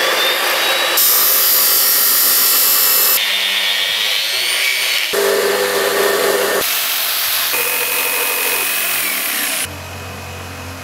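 Abrasive cut-off saw grinding through a steel pipe: a loud, harsh grinding with whining tones that rise and fall, jumping abruptly several times between spliced stretches of the cut. Near the end it gives way to a much quieter low hum.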